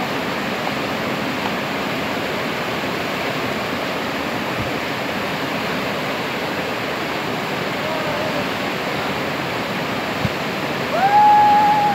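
Steady rushing of whitewater at a river standing wave. About a second before the end, a person calls out in a long held shout, the loudest thing here.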